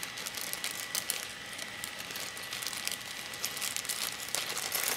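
Tools being rummaged for and picked up: a scattered run of small, light clicks and rustles.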